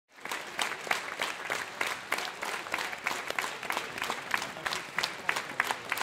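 A crowd applauding: dense, steady clapping with individual sharp claps standing out above the wash. It comes in abruptly at the very start.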